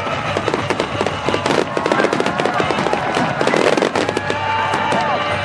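Fireworks going off in rapid succession: a dense, continuous run of cracks and bangs.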